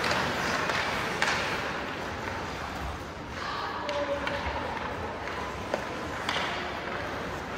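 Ice hockey game sounds: skates scraping across the ice with a few sharp scrapes or stick hits, near the start, about a second in and past six seconds, under brief shouts from players.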